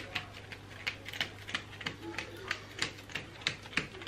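A plastic stencil being pressed and patted down by hand onto a painted floor: a run of light, irregular taps and clicks, several a second.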